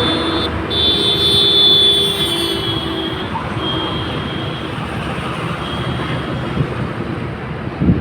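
Heavy diesel machinery running steadily, with a high whine over the first three seconds and a short knock near the end.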